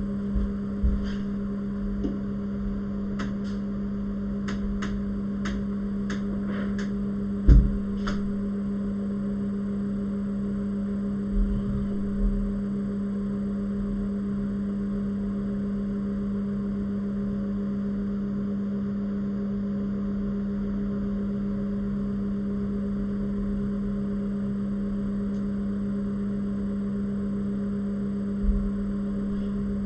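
A steady low electrical hum. A run of light clicks and a few soft handling knocks sound in the first twelve seconds.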